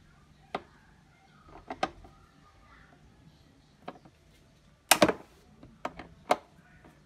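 Irregular sharp clicks and knocks of a long socket tool working on a bolt in a car's engine bay, the loudest cluster about five seconds in.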